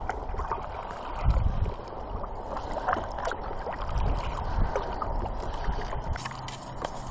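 Kayak paddle dipping into lake water, splashing and dripping in an uneven run of small splashes, with a few low rumbles, the strongest about a second in.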